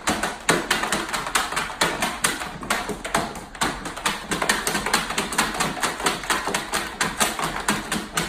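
A fast, steady run of sharp taps or clicks, about five a second.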